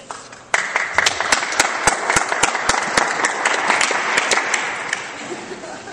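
Small audience applauding, starting suddenly about half a second in and tapering off near the end.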